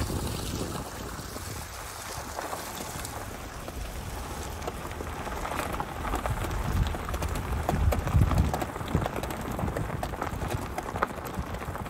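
Lexus ES rolling slowly over a dirt and gravel road: a low rumble with many scattered clicks and knocks from the tyres, growing louder after about six seconds.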